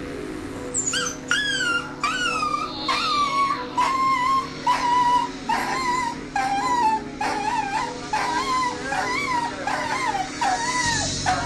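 A dog giving repeated high, wavering cries, nearly two a second, starting about a second in. It is set off by a song playing from a record.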